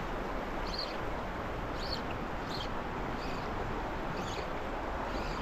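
River current rushing steadily over a shallow run, with a small bird giving short high chirps about once a second.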